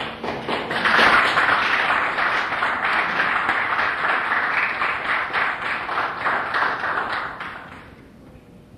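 Audience applauding: the clapping builds within the first second, holds steady, and dies away near the end.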